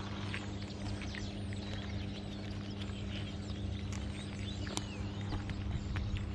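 Cats crunching dry kibble: a rapid, irregular stream of short crisp clicks, over a steady low hum.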